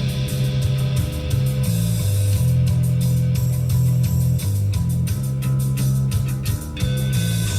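Music with guitar, a bass line stepping between low held notes, and drum hits.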